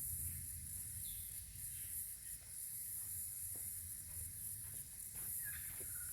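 Bush ambience: a steady high hiss with a low rumble underneath, a few faint bird chirps about a second in and near the end, and scattered faint clicks.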